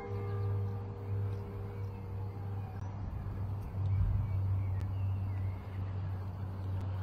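A low steady hum with a faint noise bed that swells slightly about four seconds in. The last ringing of bell-like tones dies away at the very start.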